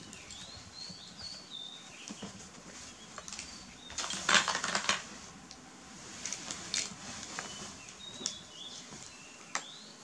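Plastic toys being handled: a burst of clattering and rustling about four seconds in, with smaller knocks a little later. Short high sliding chirps come twice, near the start and again near the end.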